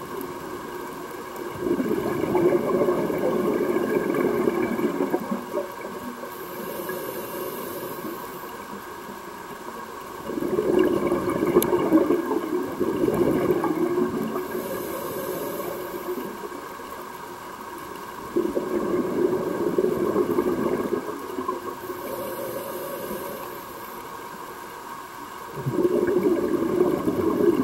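Scuba diver breathing through a regulator underwater. Each breath is a short high hiss on the inhale, then a louder rush of exhaled bubbles lasting about four seconds. The cycle repeats about every eight seconds, with a fourth exhale starting near the end.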